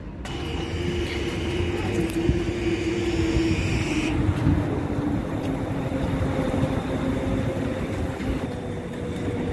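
Rubber-tyred Translohr tram pulling into the stop: a steady running noise with an electric whine that falls slightly in pitch over the first few seconds as it slows, then a steadier hum.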